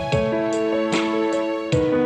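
Background music: soft piano-led instrumental with held notes and a gentle beat.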